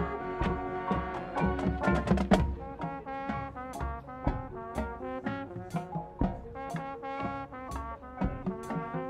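Marching band playing live: trumpets, mellophones, sousaphones and saxophones sounding short, changing chords over sharp percussion hits, with a quick run of strikes about two seconds in.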